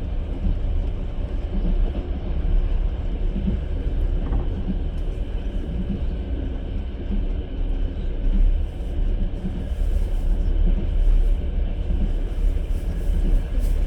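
Passenger train running along the track, heard from inside the carriage as a steady low rumble of the wheels on the rails.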